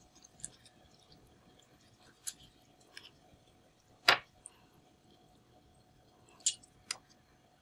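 Sparse small clicks and taps of a knife and raw squid being handled on a wooden cutting board as the tentacles are cut away and the beak pulled out, with one sharp knock about four seconds in.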